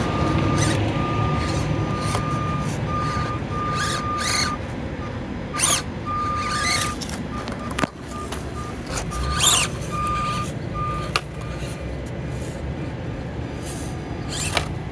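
Axial SCX24 micro RC crawlers driving over a course: small electric motors and geared drivetrains whirring, with a high-pitched motor whine that cuts in and out in short stretches as the throttle is worked. Scattered sharp clicks come from tires and chassis knocking on the terrain.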